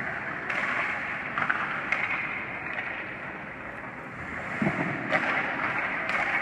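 Ice hockey skate blades scraping and carving on the ice, with a few sharp clacks of sticks and puck.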